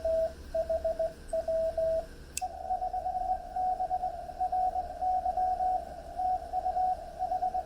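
Morse code tones from a TX-500 transceiver. For about two seconds a loud keyed sidetone sends a call in short groups. After a sharp click, a slightly higher-pitched received CW signal follows in fast, dense keying.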